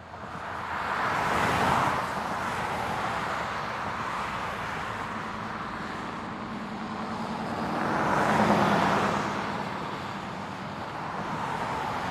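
Road vehicle noise with a low engine hum, swelling louder about a second in and again around eight seconds.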